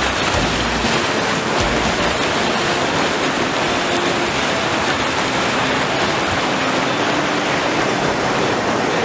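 Fast river water rushing past a drifting raft through small rapids: a loud, steady wash of whitewater.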